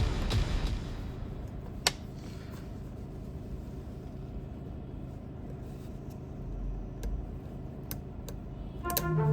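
Background music fades out in the first second, leaving a low steady hum with a few sharp clicks, one clear one about two seconds in and several near the end. Music starts again just before the end.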